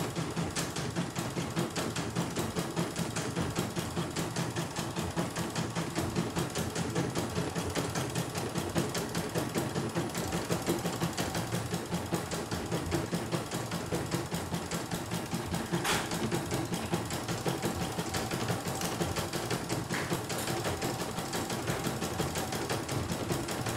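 CNY E900 computerised embroidery machine stitching out a design, its needle running in a fast, steady rhythm, with one sharp click about two-thirds of the way through.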